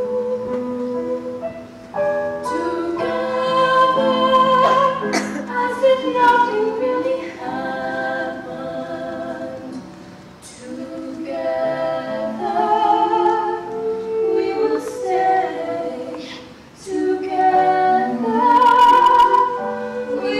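A group of stage-musical performers singing a song together in harmony, in phrases of held notes with brief breaks between them.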